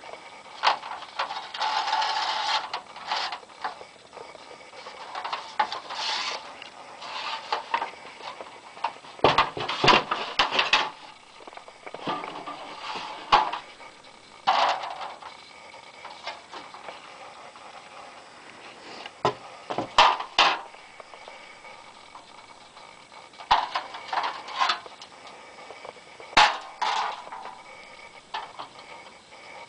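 Metal street name signs being handled and shuffled through on a stack: irregular clanks, knocks and scraping rubs of sign on sign, a few of them louder clatters.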